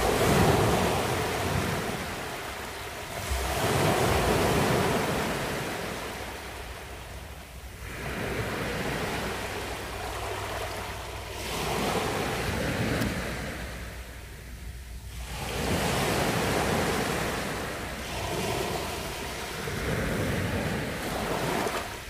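Small sea waves breaking on a sandy beach and washing up the sand, a surge of surf swelling and fading about every four seconds.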